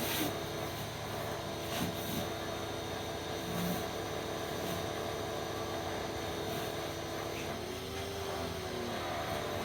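Pressure washer running with a steady engine-like drone and the hiss of the water spray; the drone's pitch dips and recovers briefly about eight seconds in.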